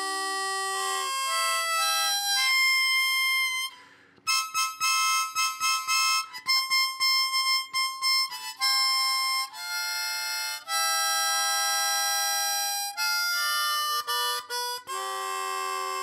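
Harmonica playing a tune of held and quick notes, with a short pause about four seconds in.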